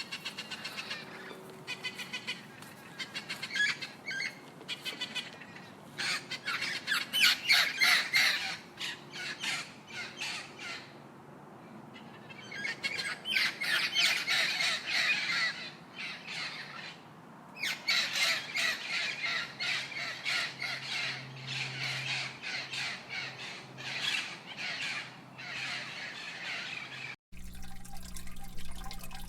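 Birds calling and squawking in dense, rapid runs, in bouts with short pauses. Near the end it cuts suddenly to a different, steady sound.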